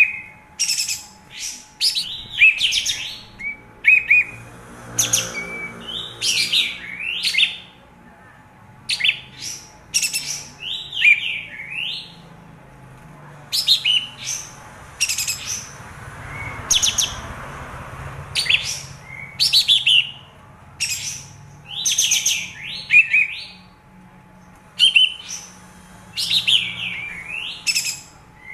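Kapas tembak bulbul singing: short, loud chattering phrases of quick rising and falling notes, repeated every second or two with brief pauses between them.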